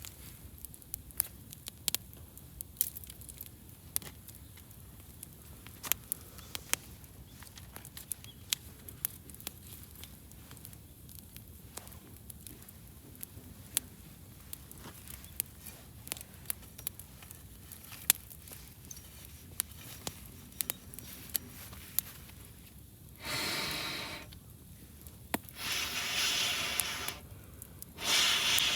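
Wood fire crackling with scattered sharp pops. From about two-thirds of the way in, three loud rasping bursts of a second or two each come in over it.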